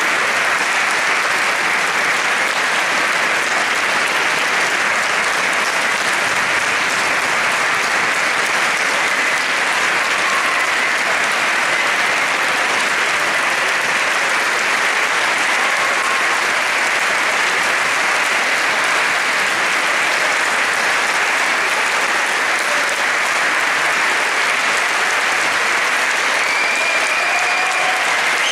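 Concert-hall audience applauding, dense clapping that runs steady without a break.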